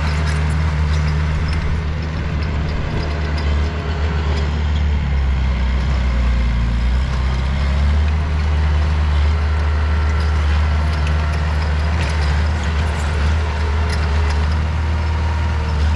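Diesel engine of heavy earthmoving machinery running steadily under work, a deep drone with scattered clicks and rattles.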